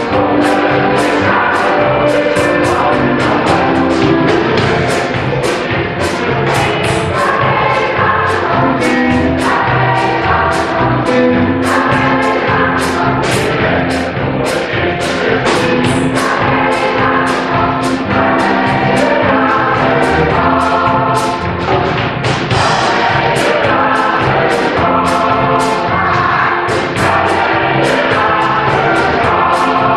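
Mixed choir singing a song in chorus, accompanied by accordions and a drum kit keeping a steady beat of about two strokes a second.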